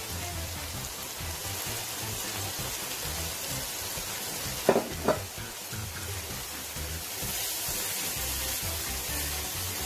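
Spiced masala sizzling in oil in a pan as it is stirred with a spoon. The sizzle grows a little louder near the end. About halfway through come two sharp knocks half a second apart, the spoon striking the pan.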